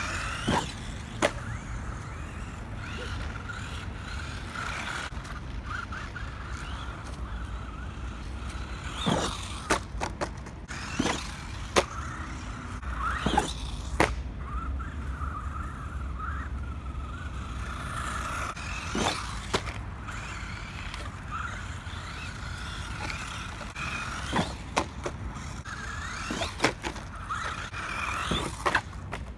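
Small electric motor of a 1/18-scale ECX Torment RC short-course truck whining up and down as it speeds across grass and dirt and launches off a cardboard ramp. Sharp knocks come again and again as it hits the ramp and lands.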